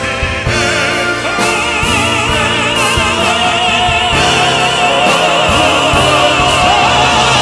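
Male vocal quartet singing in operatic crossover style with accompaniment, the voices holding long notes with wide vibrato from about a second and a half in and growing slightly louder.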